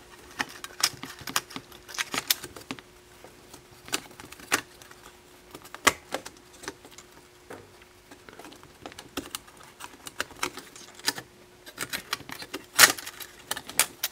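Irregular small clicks and taps of a circuit board being handled and fitted back onto a car CD player mechanism, with the loudest click near the end. A faint steady hum runs underneath.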